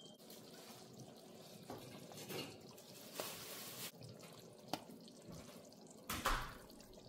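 Pot of tomato stew simmering with soft bubbling and dripping, and a few clicks and small splashes as pieces of pomo are put in with metal tongs; the loudest splash comes about six seconds in.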